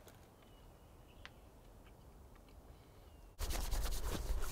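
Very quiet outdoor air with a few faint, short bird chirps. About three seconds in, a loud, fast rubbing starts: hands being rubbed together to warm them in the chilly air.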